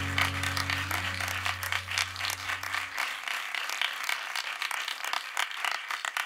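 A band's final held chord dies away, its low bass note cutting off about three seconds in, under steady applause from a small audience.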